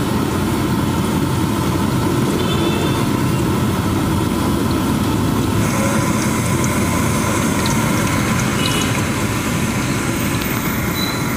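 Cireng dough frying in a wok of hot oil: a continuous sizzle and bubbling over a steady low rumble.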